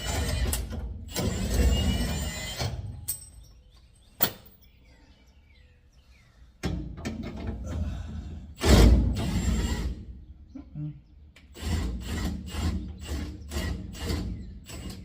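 Metal knocks and clanks from work on a truck's leaf-spring axle U-bolts. One loud hit comes about halfway through, then a run of quick regular strokes, two or three a second, near the end.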